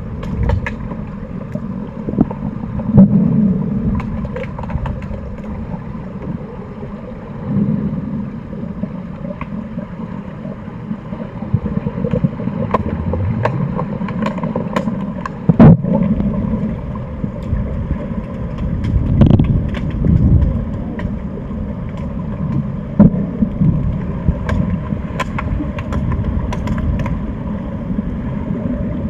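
Underwater sound in a pool, picked up by a submerged camera: a steady low rumble with scattered sharp clicks and knocks, the loudest about three seconds in and twice around the middle.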